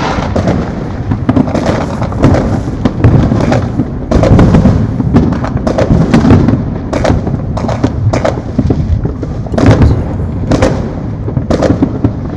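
Fireworks going off on all sides without a break: a steady low rumble of overlapping booms, with sharp bangs and pops several times a second.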